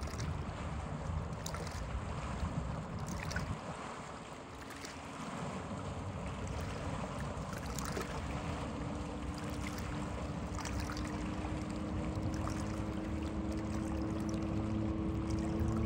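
Stingray 606ZP speedboat's modified 4.3 V6 engine running, its pitch climbing slowly through the second half as the boat picks up speed. Wind and water noise throughout.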